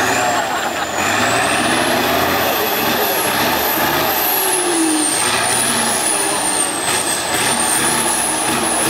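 Tatra 815 6x6 trial truck's diesel engine running hard under load as the truck crawls through deep mud. A thin high whistle rises and falls above the engine.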